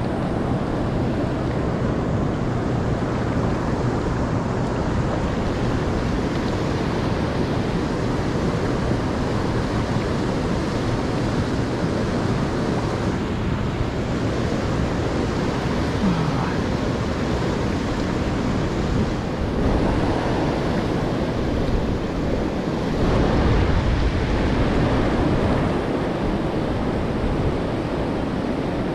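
River riffle rushing steadily over rocks, with wind rumbling on the microphone, a little stronger about three quarters of the way through.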